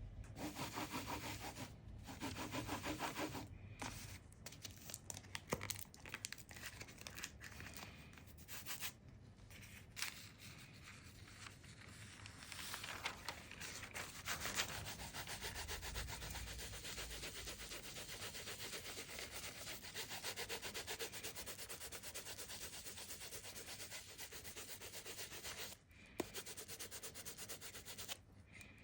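Steady rubbing strokes, something worked back and forth against a hard surface, with a few brief pauses.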